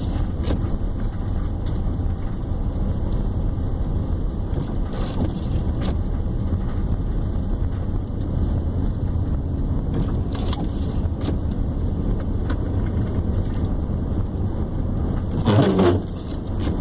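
Steady low rumble of a car driving on a snow- and slush-covered highway, heard from inside the cabin: engine and tyre noise. A brief vocal sound comes near the end.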